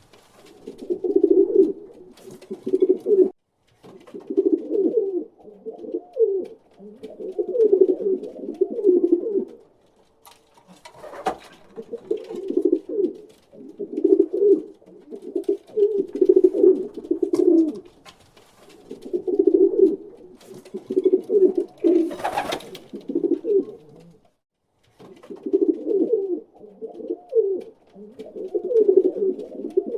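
Pigeon cooing: low, throaty coo phrases of a second or two each, repeated one after another with short pauses. A short sharp noise cuts in twice, about 11 and 22 seconds in.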